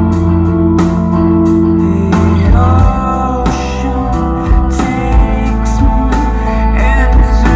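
Rock music: sustained, layered guitars over heavy bass. A male voice starts singing about two and a half seconds in.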